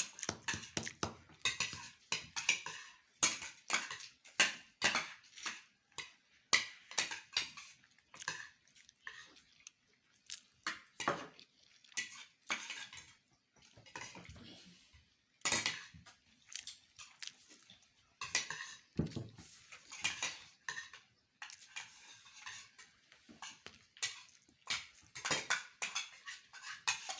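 Cutlery clinking and scraping against plates in quick, irregular strokes as several people eat rice and meat fast.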